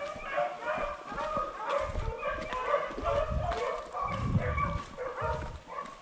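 A pack of rabbit beagles baying, many voices overlapping in a continuous chorus of short calls, as the hounds run a rabbit's track. Low rumbling noise comes and goes from about two to five seconds in.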